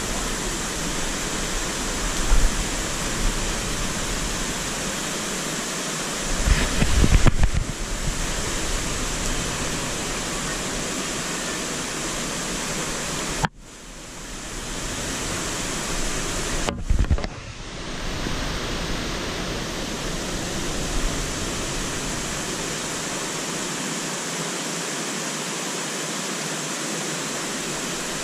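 Steady rushing of a small cascade in a rocky mountain stream, close by. There is a brief low rumble about seven seconds in, and the sound drops out abruptly for a moment about halfway through.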